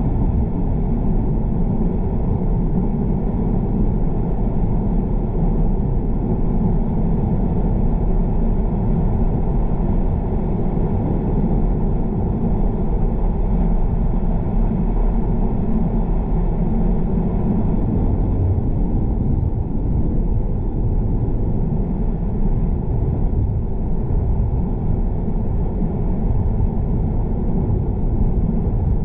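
A car driving at a steady speed: an even, low rumble of engine and tyres on the road.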